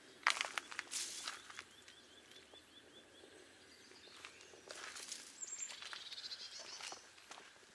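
Footsteps, several sharp ones in the first second and a half and more from about four and a half to seven seconds in. Between them a bird sings a quick run of about ten short, evenly repeated high notes.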